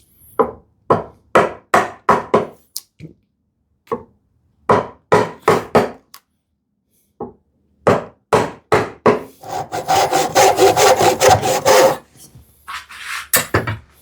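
Hand saw cutting through wood with stroke-by-stroke rasping. The strokes come in short runs at about two a second, with a faster, continuous flurry of strokes near the end.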